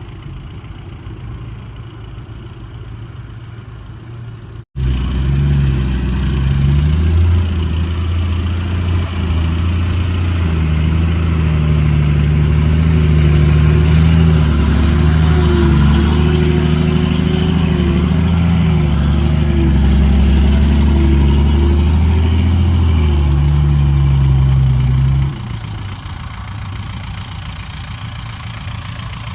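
Heavy diesel engine of earth-moving machinery running. After an abrupt break about five seconds in, a much louder engine works close by, its pitch rising and falling slightly. Near the end it drops back to quieter running.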